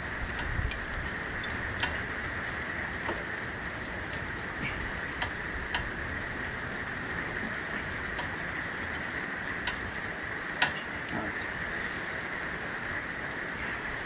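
Steady hiss with scattered light clicks and taps from hand tools working on the power steering hose fittings, one sharper click about three quarters of the way through.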